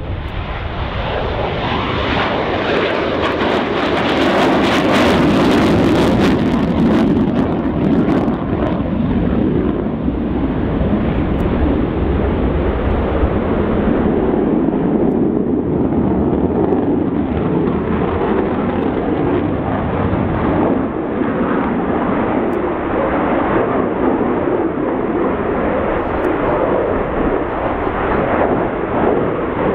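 Saab JS37 Viggen's Volvo RM8 turbofan: loud, continuous jet noise as the aircraft passes overhead. It swells over the first few seconds and crackles sharply from about three to eight seconds in, then settles to a steady rumble.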